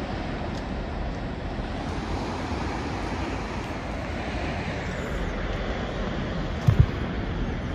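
Steady rushing wind buffeting the microphone, with two low thumps close together near the end.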